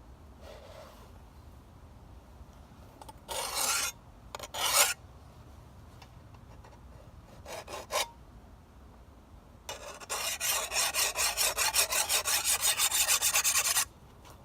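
A hand file scraping along the edge of an old sickle blade to sharpen it. A few separate strokes come first, then a quick run of short, even back-and-forth strokes for about four seconds near the end.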